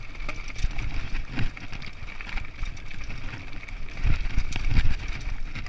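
Mountain bike rolling down a rocky singletrack: the tyres crunch over loose rock, the bike rattles with frequent knocks, and wind buffets the handlebar-level microphone as a low rumble.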